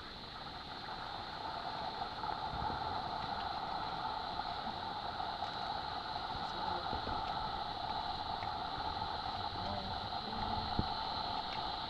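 Steady drone of a rainforest insect chorus, holding at several fixed pitches, with a single sharp click near the end.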